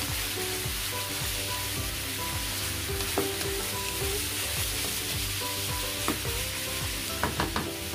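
Pieces of fatty pork sizzling in hot oil in a non-stick wok while being stirred and seared with a wooden spatula. A few knocks of the spatula against the pan come about three and six seconds in, and a quick cluster of knocks comes near the end.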